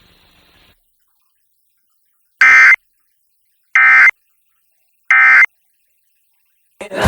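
Emergency Alert System End-of-Message signal: three short bursts of warbling digital data tones, about a second apart, marking the close of the alert. Music starts right at the end.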